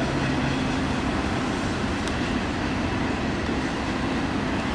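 Freight train of flatcars stacked with waste containers rolling past: a steady noise of wheels running on the rails.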